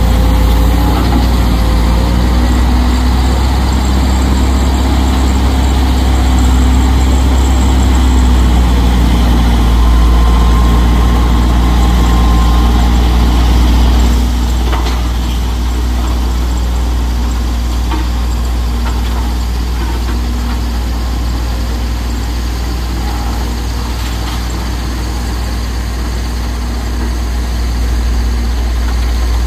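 Heavy truck engine running steadily at idle, a loud, low, even drone that gets a little quieter about halfway through.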